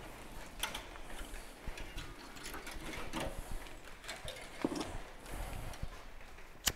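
Irregular light clicks and knocks of tools and cutting wire being handled while setting up to cut out a bonded van window, with one sharp click near the end.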